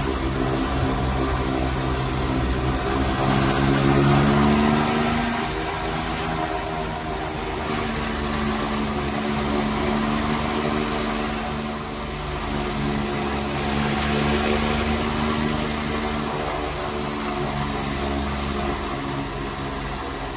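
Twin Otter's two Pratt & Whitney PT6A-27 turboprop engines and propellers heard from inside the cockpit, running steadily at low power while the aircraft moves on the water. A high turbine whine drifts slowly up and down in pitch, and the engine note rises and swells briefly about four seconds in.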